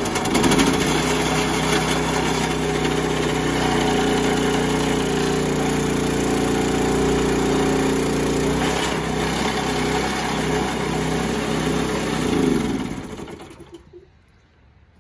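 Small Harbor Freight gas engine running hard, belted to a V8 Cummins diesel to crank it over for a start. It runs steadily for about twelve seconds, then winds down and stops.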